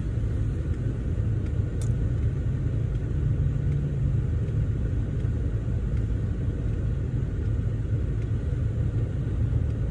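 Steady low rumble of a car heard from inside the cabin, with the engine running.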